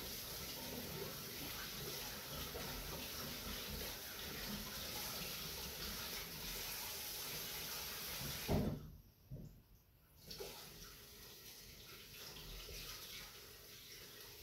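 Kitchen tap running into a sink as hands are rinsed under it. A knock sounds about eight and a half seconds in, after which the water is quieter.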